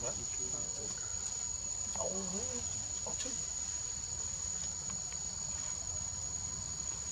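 Insects droning steadily at a high pitch, with a short faint call about two seconds in.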